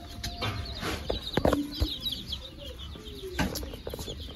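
A bin of baby chicks peeping: many short, high, falling chirps overlapping continuously, with a few knocks about a second and a half in and again near three and a half seconds.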